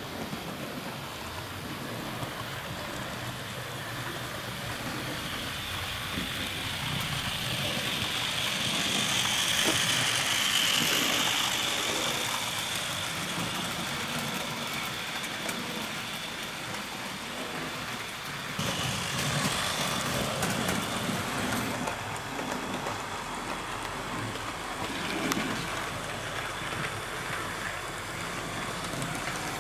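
Model railway train running along the track, its wheels and motor making a steady rolling rumble that grows louder to a peak about ten seconds in as it passes close by, then eases off, with another louder stretch starting suddenly a little past halfway.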